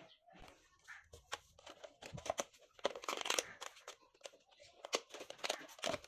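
Thin plastic drink bottles crinkling and crackling as they are handled and pressed together, with irregular sharp clicks that come thickest in the middle and again near the end.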